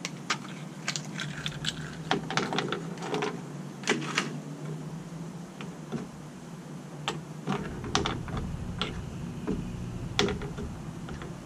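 Light, irregular clicks and crinkling as a plastic packet of spray-paint tips is opened and the small plastic fat caps are set down on the table one at a time.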